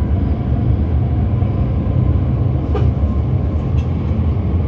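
Cabin of an MTR South Island Line S-Train running at speed through a tunnel: a steady low rumble from the wheels and running gear, with one faint click nearly three seconds in.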